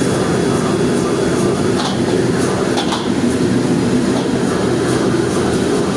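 Gas wok burner running at high flame with a steady rushing noise, while a metal ladle scrapes and clinks against the wok during stir-frying of noodles, a few sharp clinks scattered through.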